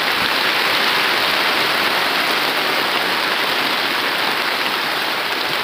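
Heavy rain falling steadily on wet ground, heard from under an open-sided shed.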